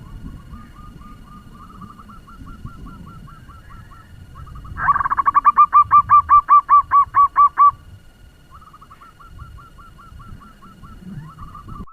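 Zebra doves calling in fast staccato runs of short repeated notes at about four a second: a fainter run, then a loud close run of about a dozen notes from about five seconds in, then fainter notes again near the end.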